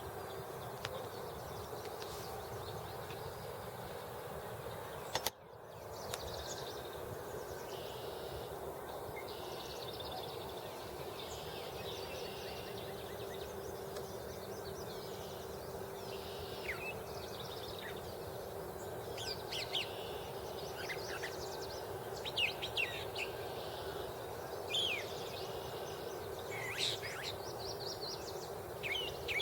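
Several wild songbirds calling and singing in an open field, in short phrases that come more often in the second half, over a steady low hum. A sharp click and brief dropout about five seconds in.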